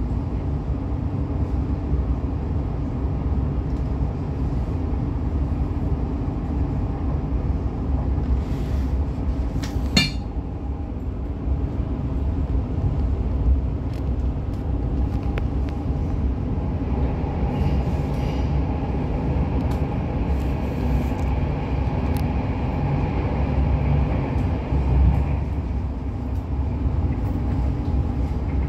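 Train running on rails, a steady rumble of wheels and carriage throughout, with one sharp metallic clank about ten seconds in.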